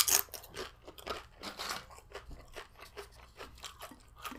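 Close-miked chewing of crunchy tortilla chips: a loud crunching bite at the start, then a steady run of smaller crunches as the mouthful is chewed.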